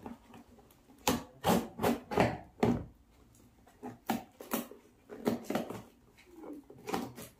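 Kitchen knife slitting the packing tape and cardboard of a parcel box: a series of short, sharp scraping strokes in quick runs, with short pauses between.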